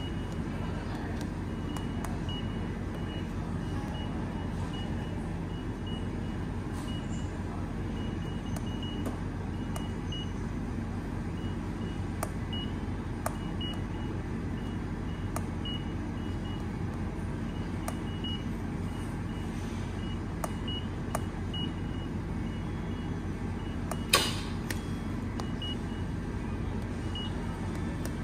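Steady low hum at a train-station ticket machine, with a faint high-pitched pipping on and off and scattered faint clicks. There is one sharper knock about 24 seconds in.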